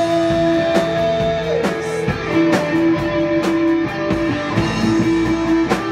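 Live rock band playing: drum kit and electric guitar with keyboards, a lead line holding long notes over the steady beat. No singing.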